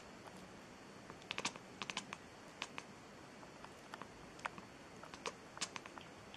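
Scattered sharp clicks and taps at irregular intervals, some in quick clusters of three or four, over faint room hiss. No meow is heard, though the cat opens its mouth as if meowing.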